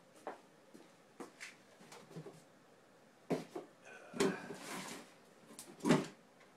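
Someone rummaging through parts and tools in search of a spare piston: scattered light clicks and knocks, a stretch of rustling and scraping just past the middle, and a louder knock near the end.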